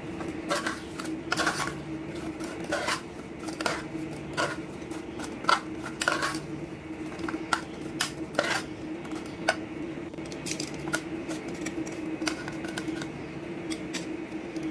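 Crispy double-fried chicken wings being tossed in buffalo sauce in a dish: irregular clinks and clatters of the wings and utensil against the dish, over a steady low hum.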